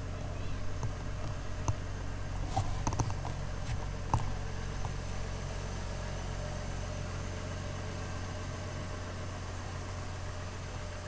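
2004 GMC Envoy's 4.2-litre inline-six idling steadily while warming up after a cold start, with a few light clicks about three to four seconds in.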